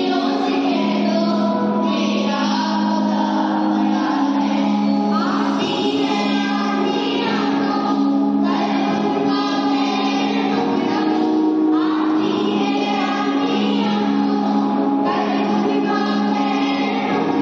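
A group of children singing a song together, with long held notes, without a break.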